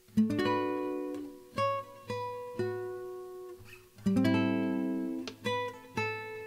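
Background music of plucked-string chords, each one struck and left to ring out before the next.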